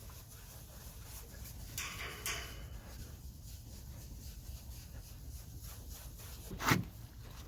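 A single short dog sound near the end, over faint background noise.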